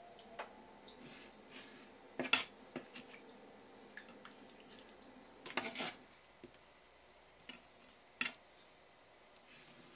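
Kitchen knife knocking and tapping on a wooden cutting board while slices of blanched pufferfish (fugu) are cut and moved about. The knocks are scattered and sharp: a loud one about two seconds in, a quick run of them a little past halfway, another about eight seconds in, and lighter ticks between.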